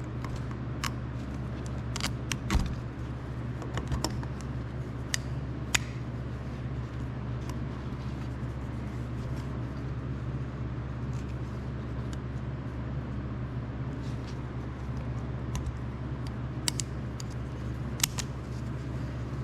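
Light metallic clicks and ticks as a stepped piston compression ring is spread by hand and worked into its groove on the piston, thickest in the first few seconds and again near the end, over a steady low hum.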